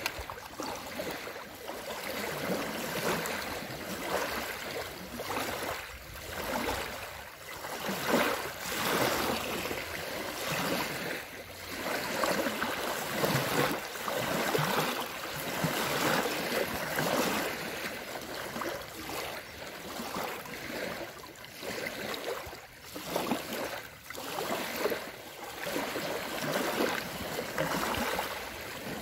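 Small lake waves lapping and splashing onto a stone-paved shore, in irregular washes every second or two.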